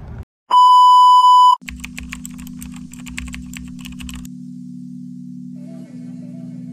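A loud steady electronic beep on one pitch, lasting about a second. Then a quick run of keyboard-typing clicks, a sound effect for on-screen text typing out, over steady background music that carries on after the clicks stop.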